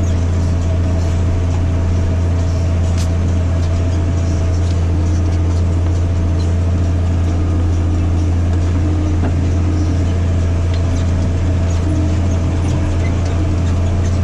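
Massey Ferguson 8210 tractor's diesel engine running steadily under load, pulling a disc harrow through the soil, with a strong low hum.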